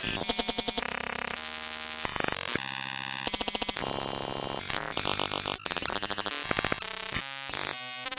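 Synthetic digital glitch noise: harsh buzzing and stuttering tones that cut abruptly from one pattern to the next every fraction of a second, with rapid repeating clicks in places.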